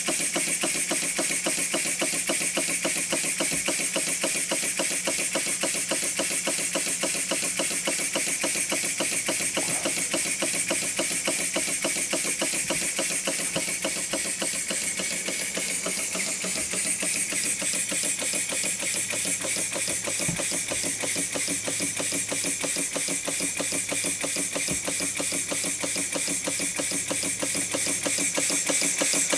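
Brass overhead-crank model steam engine running on compressed air: a fast, steady beat of exhaust puffs with a hiss of air over it.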